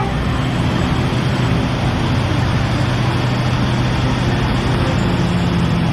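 A motor running steadily, its low hum under a loud, even hiss, stopping suddenly at the end.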